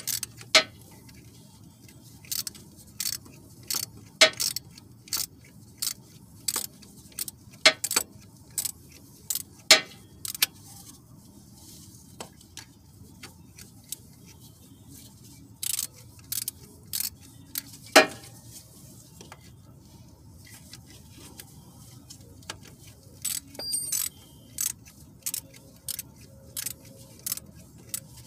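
Hand tools clicking and clinking against metal engine parts: sharp irregular clicks, about one or two a second, with a couple of pauses and a quick run of clicks near the end.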